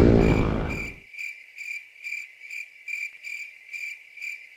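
Cricket chirping: a steady series of short, even chirps, about two a second, with nothing else behind it. Loud wind and road noise from the bike ride fades out during the first second.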